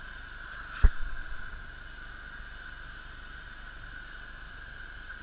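Gasoline-powered cutting torch hissing steadily as it cuts through steel. A single loud thump comes about a second in.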